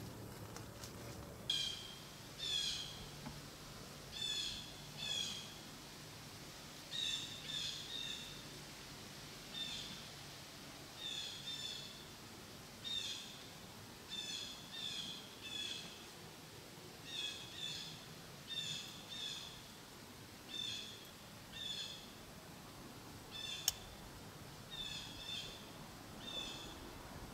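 A bird calling over and over in the woods: short pitched notes, mostly in pairs, about one call a second. A single sharp click sounds about three-quarters of the way through.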